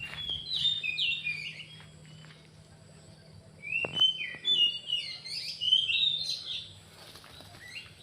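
Bird calls: quick series of high chirps and short gliding notes, in two bursts, one at the start and a longer one about four seconds in.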